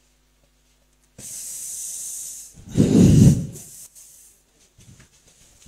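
Breath hissing into a close handheld microphone: a long hiss, then a louder blast of breath that pops the microphone about three seconds in, followed by a few faint short breaths.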